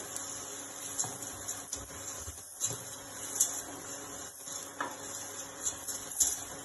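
Rice being toasted in hot oil in a stainless steel pot with diced capocollo, sizzling softly, while a wooden spoon stirs and scrapes against the pot in irregular scrapes and knocks. This is the toasting stage of a risotto.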